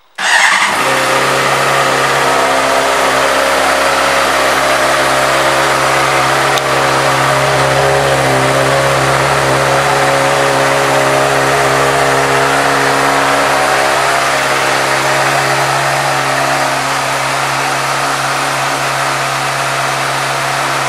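2014 Honda CBR600RR's liquid-cooled inline-four engine fires up suddenly and settles straight into a steady idle.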